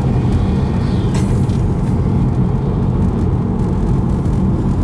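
Steady road and engine noise of a car driving, heard from inside the cabin: a loud, even low rumble.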